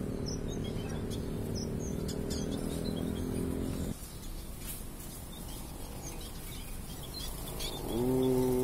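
Small finches (munias) chirping, many short high calls scattered throughout. Under them is a steady low hum that stops abruptly about halfway, and a louder low drone that comes in near the end and slowly falls in pitch.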